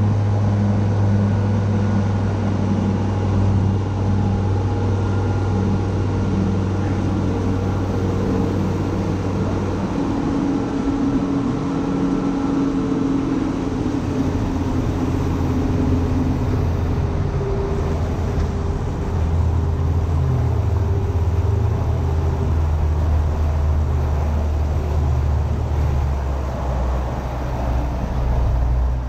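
Rigid inflatable boat's engine running steadily under way, with wind and rushing water around it; the engine note drops slightly about two-thirds of the way through.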